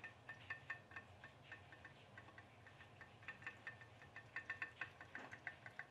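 Faint, rapid, irregular clicking, several clicks a second and a little louder after about four seconds, from a pop-pop boat made of an aluminium mackerel tin and a coiled aluminium tube, heated by a tea light, running under its own steam across a dish of water.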